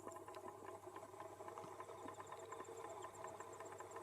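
Faint insects chirping in quick, soft, evenly spaced ticks.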